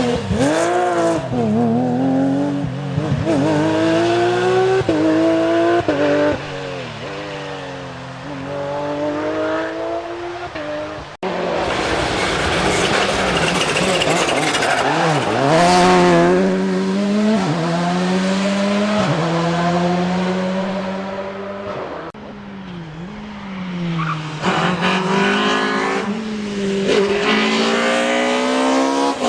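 Rally car engines revving hard, pitch climbing and dropping through the gear changes as the cars drive past on a stage, in three clips cut together, with abrupt changes about a third and two thirds of the way through.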